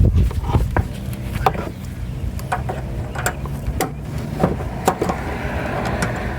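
Hand tools working on a car's brake line fittings: irregular sharp metal clicks and clinks, with a short scraping rasp about five seconds in, over a steady low hum.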